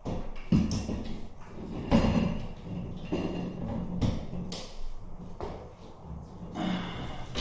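Irregular knocks, clicks and rustling from handling a wall sconce and its wiring at the wall mounting bracket, with a few sharper knocks about half a second, two seconds and four seconds in.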